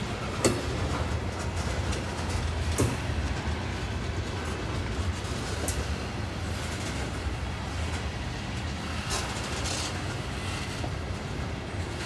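Freight train of tank cars rolling past: a steady low rumble of steel wheels on rail, broken by a few sharp clicks and clanks spaced a few seconds apart.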